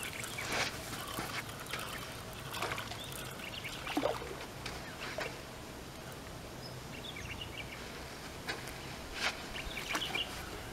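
Faint, scattered splashes of a small hooked carp thrashing at the water surface as it is reeled in.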